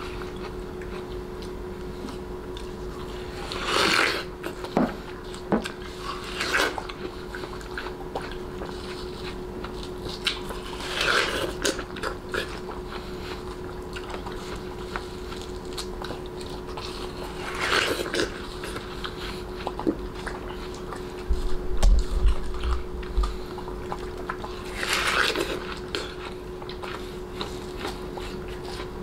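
Bichon frisé biting and chewing watermelon: about five wet, crunchy bites spaced several seconds apart, over a steady hum. A low bump about three-quarters of the way through.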